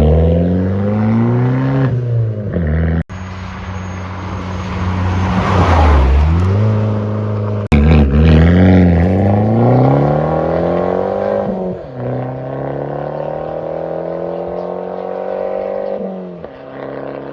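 Abarth 595 engine accelerating hard, its pitch climbing and then dropping again at each gear change, loud through a straight-through exhaust with no silencers. The sound breaks off abruptly about three seconds in and again near eight seconds, where separate driving clips are cut together.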